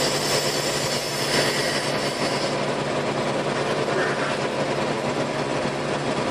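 Diesel engine of the crane running steadily, working the lift while the CompAir compressor is hoisted off the ground.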